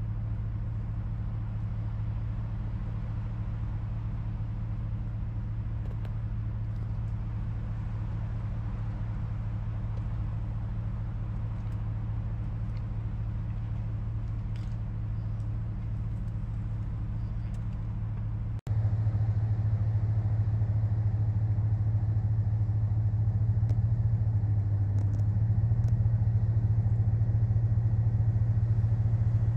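Motor vehicle engine running with a steady low drone. There is a cut about two-thirds of the way through, after which it is louder, and its pitch dips briefly near the end.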